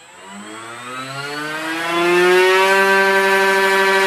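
HobbyKing 3.5 brushless RC motor spinning a 9x6 two-blade propeller up to full speed: a whine rising in pitch over about two seconds as a test board ramps up the throttle, then holding steady at top speed. It cuts off suddenly near the end.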